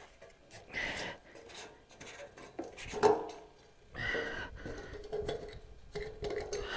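Scattered light metal clinks and scrapes from hands working on a portable generator while its fuel tank is opened and checked for fuel; the engine is not running.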